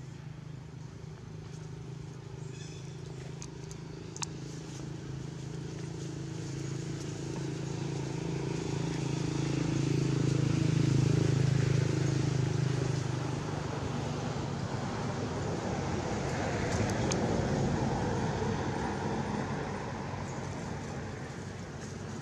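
A passing motor vehicle: a steady engine hum grows louder for about ten seconds and then fades, followed a few seconds later by a second, hissier swell of road noise.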